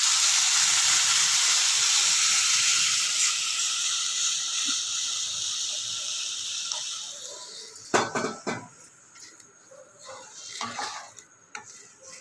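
Butter-fried vegetables sizzling as strained corn stock is poured into the hot pan; the hiss starts strong and fades away over about eight seconds. After that come a few knocks of a utensil against the pan.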